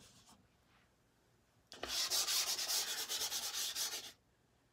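Soft pastel stick rubbed back and forth across pastel paper in quick scratchy strokes. It starts about two seconds in and stops shortly before the end.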